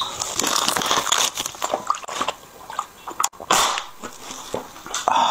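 Someone drinking from a thin plastic water bottle: the plastic crackles as it is handled and squeezed, with gulping.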